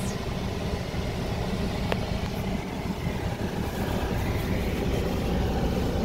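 A car running, heard from inside the cabin: a steady low rumble with a rush of air. There is a single faint click about two seconds in.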